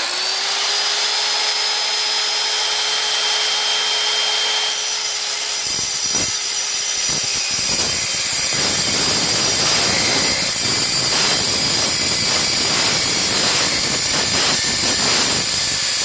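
Evolution EVOSAW180HD 7-1/4-inch steel-cutting circular saw running free with a steady whine. About five seconds in the blade bites into a roughly 3-inch metal pipe, and a harsh grinding cut keeps on.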